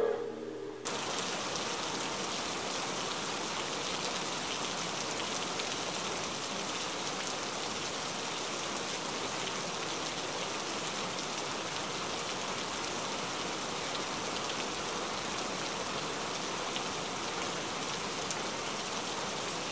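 A steady, even hiss like falling rain sets in about a second in, after the music fades out.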